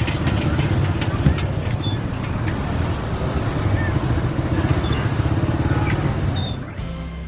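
A motor vehicle's engine running close by, a dense pulsing rumble over street noise, fading away near the end.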